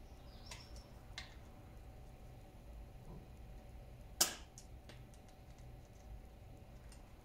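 Scattered small metallic clicks of pliers and a thin pointed tool working at a corroded, seized screw on a backpack sprayer's pump part, with one sharp, louder click a little over four seconds in.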